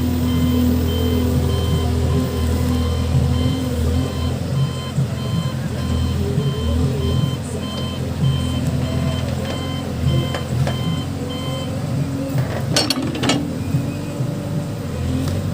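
Case backhoe loader's diesel engine running while its reverse alarm beeps steadily, about two high beeps a second. The beeping stops about twelve seconds in, and a few sharp clanks follow.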